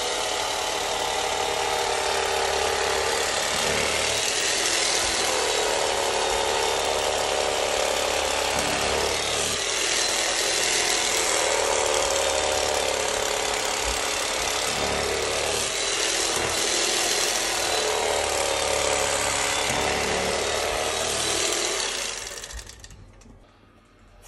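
Electric carving knife running as it saws through a silverside roast beef, its buzz swelling and easing with each slice. It cuts off near the end.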